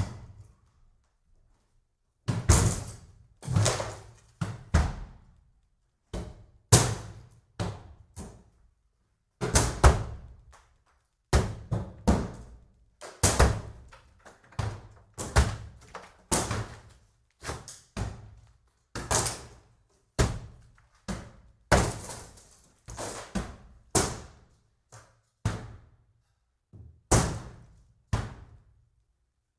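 Axe blows chopping into the timber of a wooden cabin: a long series of heavy, sharp chops in loose runs, about one or two a second, starting about two seconds in after a short pause.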